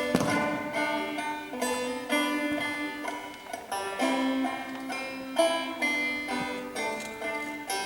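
Live acoustic music on plucked string instruments, an instrumental passage of the song with no singing: a run of picked notes that each start sharply and ring out.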